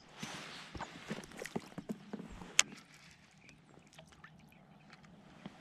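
Water splashing and trickling around a float tube, with a brief hiss near the start and scattered small clicks and knocks from fishing tackle. The loudest is one sharp click about two and a half seconds in.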